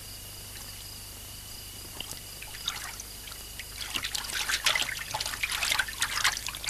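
Bathwater splashing and dripping as a person rises out of a bubble bath, water streaming off into the tub. Scattered splashes start about two seconds in and grow into a busy run of splashing and trickling near the end.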